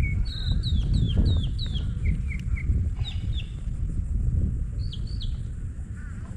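Birds calling: a series of short, falling whistled notes and quick chirps, repeated several times, with a pair of sharper notes about five seconds in. A steady low rumble runs underneath.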